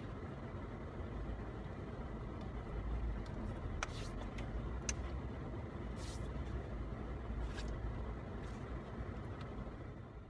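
Steady low rumble of car noise heard from inside the cabin, with a few brief sharp clicks and rustles through the middle, fading out at the very end.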